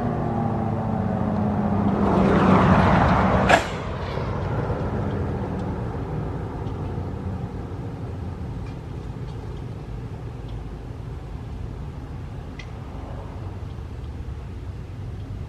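Sentry 15V2T-B outdoor warning siren winding down at the end of its test, its tone falling in pitch and fading, with one last swell that cuts off with a sharp click about three and a half seconds in. After that only a steady low outdoor rumble remains.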